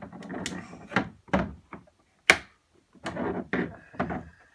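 Small plastic toys and containers being handled: a run of knocks and clatter, with one sharp click a little over two seconds in.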